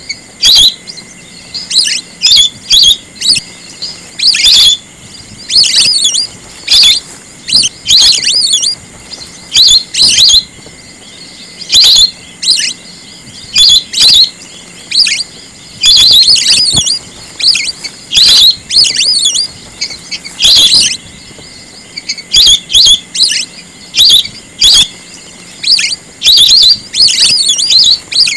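Lesser whistling ducks giving loud, shrill whistled calls, in quick clusters of a few sharp notes every one to two seconds.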